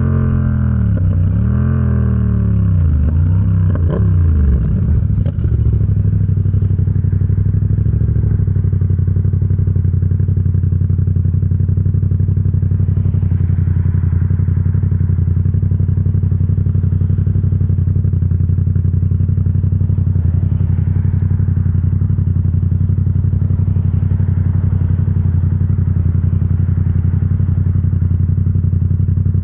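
Yamaha XSR700's 689 cc parallel-twin engine through an aftermarket SC Project exhaust. In the first few seconds the revs rise and fall several times, then the engine settles and runs at a steady speed.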